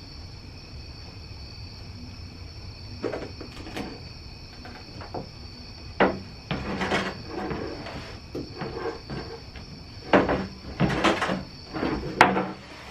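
Irregular knocks, bumps and clatter of parts and hand tools being handled while fitting a rear diffuser under the car. They start about three seconds in and grow busier, with the sharpest knocks in the second half.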